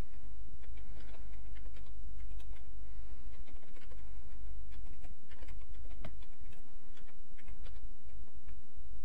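Typing on a computer keyboard: a run of irregular keystroke clicks, several a second, over a steady low hum.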